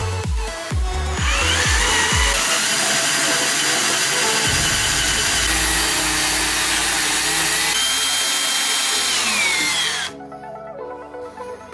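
Power drill boring through steel rectangular tubing. The motor whine rises as it spins up about a second in and holds steady while cutting, then falls and stops abruptly near the end. Background music plays underneath.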